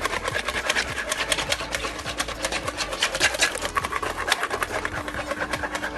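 Hand whisk beating donut dough fast in a bowl: a rapid, even run of clicks and scrapes as the wires strike the sides, several strokes a second.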